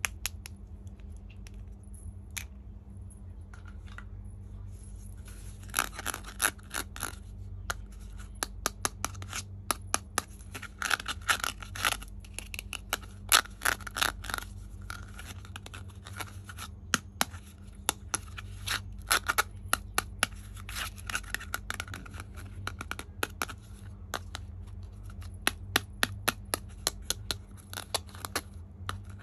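Unboxing of a plastic toy kitchen playset: its pieces and packaging handled, an irregular run of sharp clicks and scratches. The clicks are few at first and come thick and fast from about six seconds in.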